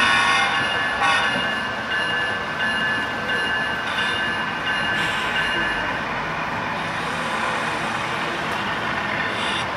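HO scale model train running on a club layout, with a few steady high tones for about the first six seconds over a steady background din.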